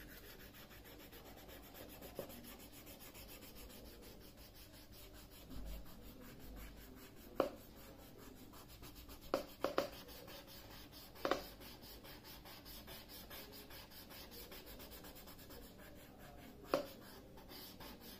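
Faint rubbing and scratching on drawing paper as a pencil-shaded shape is worked over by hand. Five short sharp clicks are scattered through it, around seven, nine to ten, eleven and seventeen seconds in.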